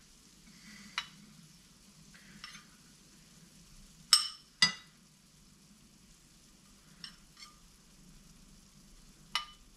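A spoon clinking and scraping against a ceramic bowl as rice is packed into it: a few sharp clinks, the loudest pair about four seconds in. A steady low hum from a kitchen extractor fan runs underneath.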